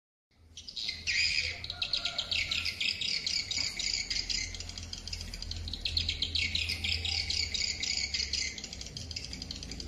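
Recorded swiftlet lure call (track No.78) played through an outdoor swiftlet-calling loudspeaker: rapid, high, chattering twitters of swiftlets in repeated bursts, over a steady low hum.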